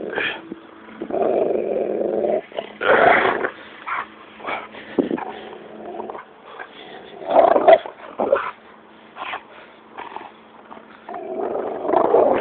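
Dog growling in play while tugging at a rope toy, in several bouts with short breaks between.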